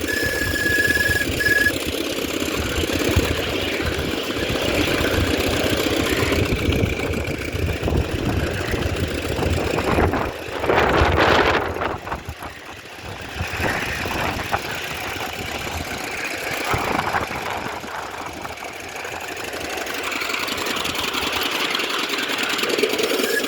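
Miniature railway locomotive running with a rapid low chuffing or knocking beat. About ten seconds in there is a louder rush of noise lasting a second or two, and then the sound falls back.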